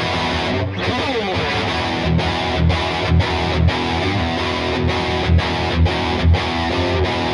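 Gibson SG Standard electric guitar played with a distorted tone: a held chord, a slide down the neck about a second in, then a rhythm of short, choppy chords about twice a second.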